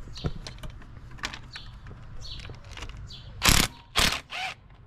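Light ratchet clicks while a bolt in a Subaru WRX engine bay is worked loose, then a cordless ratchet running in two short loud bursts and a weaker third that winds down with a falling whir, about three and a half seconds in.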